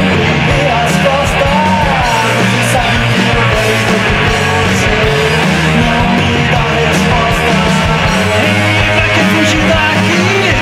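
Rock song playing, with strummed guitars over bass and drums.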